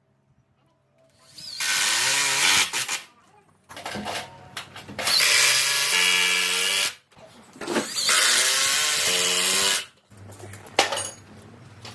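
A power tool running in three loud bursts of a few seconds each, a motor whine over a harsh cutting noise, with quieter handling noise between them.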